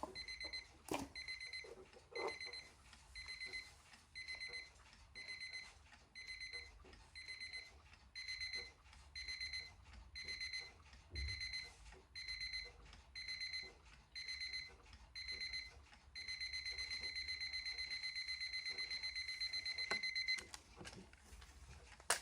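Landex Mint Colon alarm clock's electronic alarm beeping high-pitched. For about sixteen seconds it sounds in short groups of rapid beeps, roughly one group a second. It then steps up to a continuous string of beeps for about four seconds and stops suddenly near the end.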